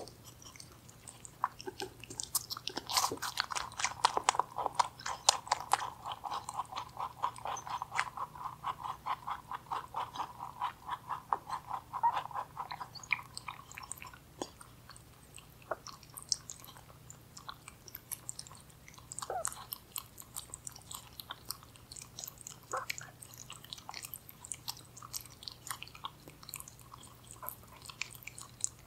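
Rabbit chewing cranberries close to a microphone: rapid chewing strokes, several a second, densest through the first half, then slower and sparser with short pauses.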